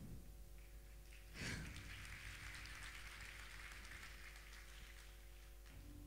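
Near silence: a faint steady hum from the stage sound system, with a soft rush of hiss starting about a second and a half in and fading away over the next few seconds.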